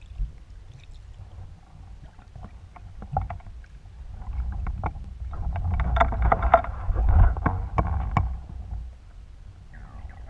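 Underwater water noise heard through a camera housing on a speargun: a steady low rumble with scattered sharp clicks and bubbling, swelling louder for a few seconds in the middle as the diver moves through the water.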